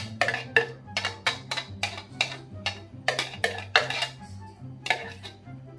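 A metal spoon knocking and scraping against a clear plastic food-chopper bowl as ground meat is scraped out: a quick run of sharp clicks and taps, two or three a second. Background music with a steady bass line plays underneath.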